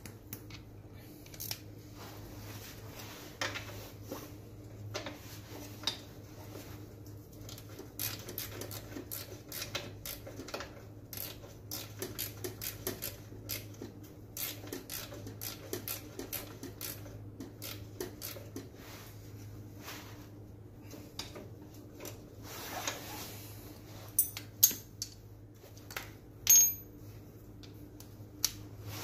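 A wrench clicking and clinking on the rear chain adjuster bolts of a 110cc Chinese ATV as they are turned to tighten the drive chain. The metal ticks come irregularly, a few louder ones near the end, over a steady low hum.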